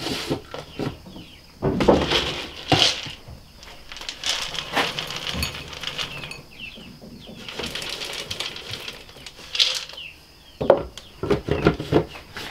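Handling feed in a feed room: the screw-top lid of a plastic feed bin is turned and knocked, and a plastic scoop of feed pellets is poured into a ceramic bowl, with scattered clatter and rattles. A few short chirps come through as well.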